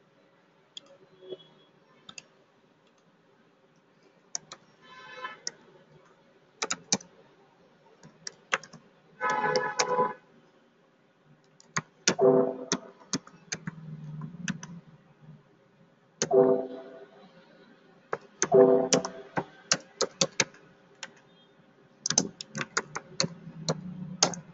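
Typing on a computer keyboard in scattered runs of keystrokes, mixed with mouse clicks, and a few short murmured voice sounds in between.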